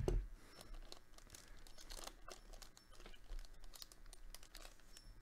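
Thin plastic wrapper of a trading-card booster pack crinkling faintly as it is handled and pulled open, in scattered small crackles, with a low bump right at the start.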